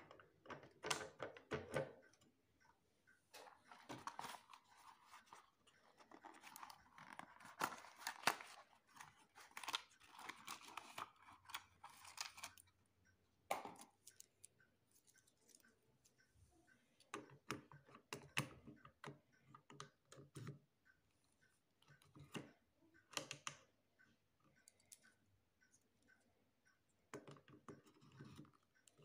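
Plastic film reels being handled and pushed onto the reel arms of a film projector: faint scattered clicks, taps and scraping in short bursts with quiet pauses between. The projector is not running.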